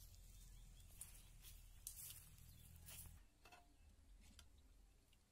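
Near silence: faint background tone with a low hum that stops about three seconds in, and a few soft clicks.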